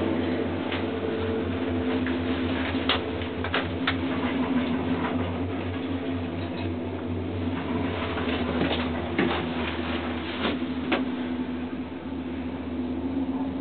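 Steady hum and low rumble inside a gondola lift cabin riding downhill on its haul rope, with several sharp clicks and creaks from the cabin.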